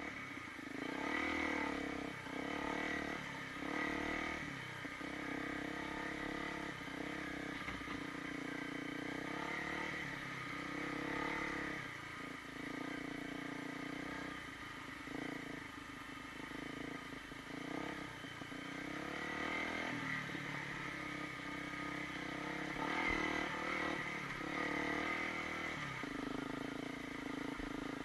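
Honda CRF250L's single-cylinder four-stroke engine running as the dirt bike is ridden, its pitch repeatedly rising and falling with throttle and gear changes.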